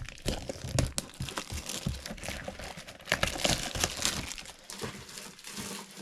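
Plastic trading-card pack wrapper crinkling and tearing as a pack is ripped open by hand, a dense run of crackles that is busiest about three seconds in.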